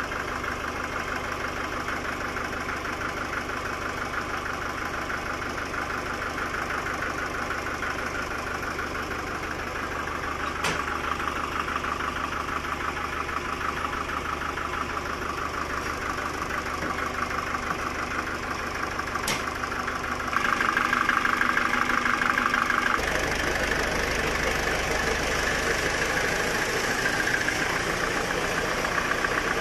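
Sawmill machinery running steadily with a fast, even rhythm, with two sharp clicks partway through. About two-thirds of the way in it gets louder, then shifts to a different running note.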